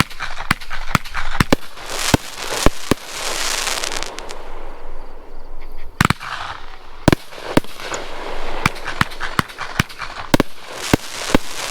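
Winda Spider Nebula 21-shot 500-gram fireworks cake firing: a rapid, uneven series of sharp bangs from shots and breaks, with stretches of crackling hiss between them from the strobe and crackle effects.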